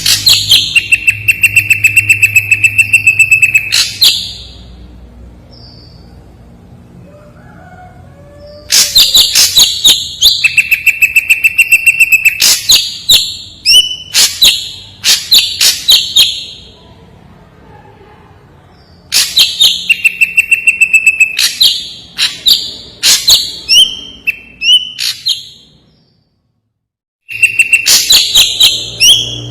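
Ashy drongo (srigunting abu) singing in loud bouts. Each bout is a fast run of sharp chattering notes, about four a second, over a long held high whistle. The bouts are separated by pauses of a few seconds.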